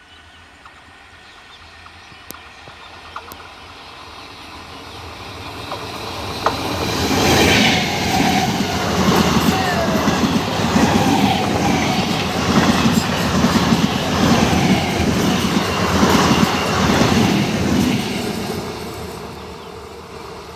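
Indian Railways EMU local train approaching and passing close by at speed: it swells for several seconds, then about ten seconds of loud, rhythmic clickety-clack of wheels over the rail joints, then fades away.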